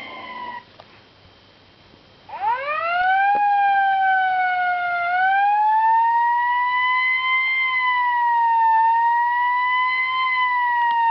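Fire engine siren ringtone playing. One siren tone dies away within the first second. After a short pause a wail siren winds up quickly in pitch and then holds a slowly rising and falling wail.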